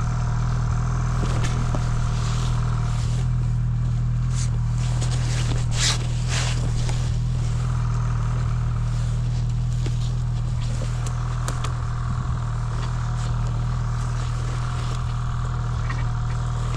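Snowmobile engine running steadily at an even pitch as the sled moves along, with a few brief scraping and rustling sounds, the loudest about five to seven seconds in.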